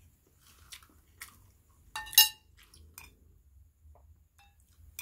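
A metal fork clicks and scrapes against a ceramic plate as rice and noodles are scooped up, with one loud ringing clink about two seconds in.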